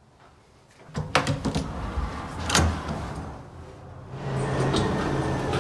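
A few sharp knocks and clatters about a second in and again near the middle, then background music coming in about four seconds in.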